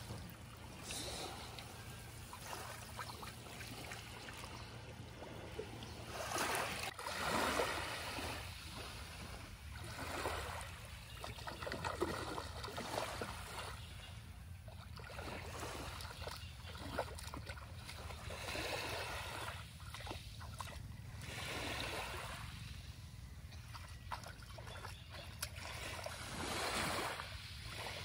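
Small waves washing up on the beach, the wash swelling and fading every few seconds over a steady low rumble.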